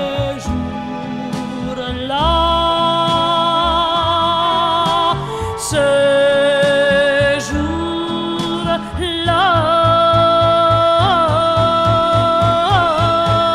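Orchestrated French chanson with long held, wavering notes that change pitch every few seconds. A steady pulsing bass comes in about nine seconds in.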